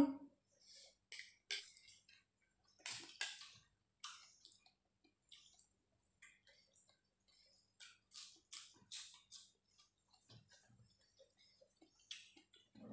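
Quiet eating sounds: chewing of rice-noodle papaya salad with scattered soft clicks and crackles, some of them from a fork on a metal tray.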